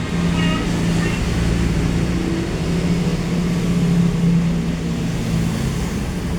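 A steady mechanical drone with a low hum that swells slightly about four seconds in.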